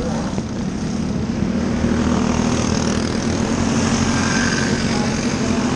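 Small winged dirt-track sprint cars racing past, their high-revving engines making a steady buzz, with one engine rising in pitch about four seconds in as a car comes closer.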